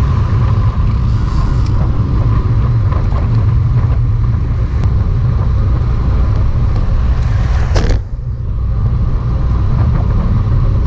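Wind rumble on the microphone of a moving bicycle-mounted camera during a road ride, with a steady hum over it; it briefly breaks off about eight seconds in.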